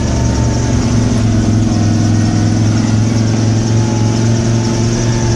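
1995 Ford F150's engine running steadily under load, pulling in second gear at low speed.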